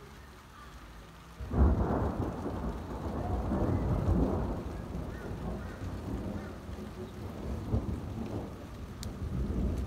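A thunderclap breaks suddenly about one and a half seconds in and rumbles on for several seconds, slowly dying away, over the steady hiss of rain.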